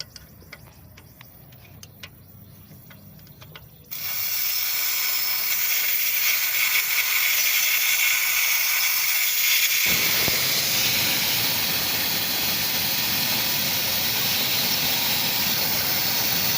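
A few faint clicks, then about four seconds in a loud, steady hiss starts suddenly: pressurised refrigerant gas escaping from the car's air-conditioning line as its fitting is opened. About ten seconds in the hiss grows fuller and deeper and keeps on.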